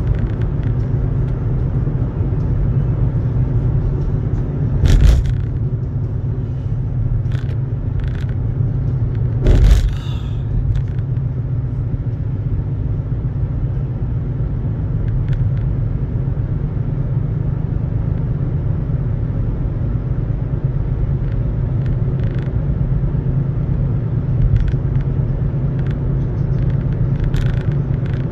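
Steady low rumble of a car's road and engine noise heard from inside the cabin while driving at highway speed. Two louder sharp knocks, one about five seconds in and one near ten seconds, and a few faint ticks stand out from it.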